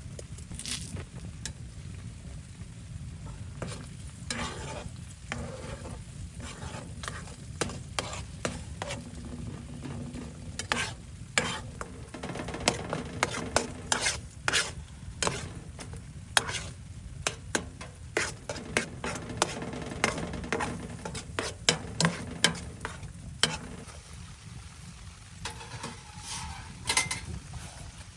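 A utensil stirring and knocking in a pot, making many irregular clinks, over a steady low rumble.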